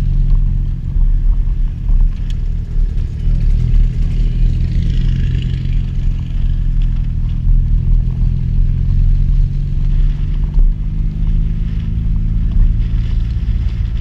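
Rally car's engine running steadily at low revs as the car rolls slowly, with a deep rumble.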